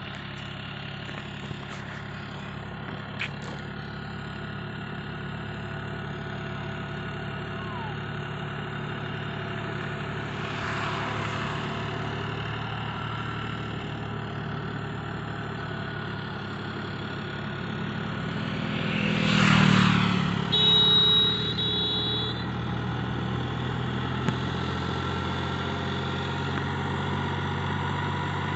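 John Deere tractor's diesel engine running steadily while hauling a heavy sugarcane load on two trailers. About two-thirds of the way through, a vehicle passes close by, and then a horn sounds for about two seconds.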